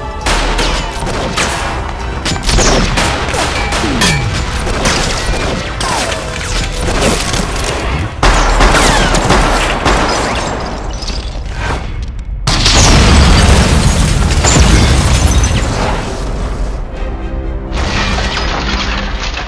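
Action-film gunfight sound effects: rapid gunshots and bullet impacts over music, with a heavy blast about eight seconds in. About twelve and a half seconds in, a car explodes in a long, deep boom.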